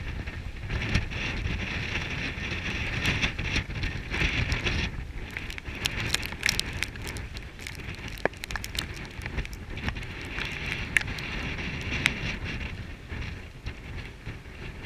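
Gusty wind rumbling over the microphone and hissing through rime-frosted trees, strongest in the first five seconds and then easing. Scattered sharp ticks and crackles run throughout, typical of ice breaking off the frozen branches and dropping onto hard snow.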